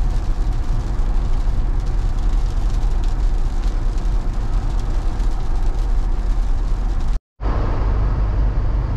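Steady road and wind noise inside a 2021 Ford Bronco's cabin at highway speed. It drops out for an instant about seven seconds in, then carries on.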